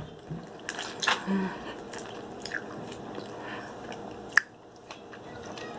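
Close-up mouth sounds of eating seafood: chewing and biting with a few sharp clicks, the loudest about four seconds in.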